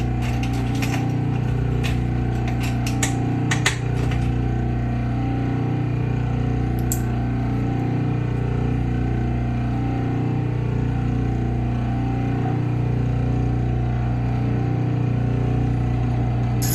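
Clipper blade sharpening machine running with a steady low hum and a low pulse about every two seconds. In the first four seconds there is a run of sharp metallic clicks and taps.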